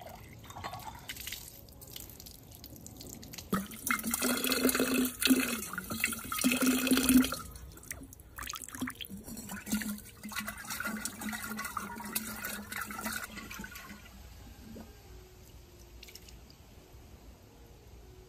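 Water splashing and sloshing as a pickle jar is rinsed out, loudest for a few seconds about four seconds in, then a quieter stretch of splashing and dripping.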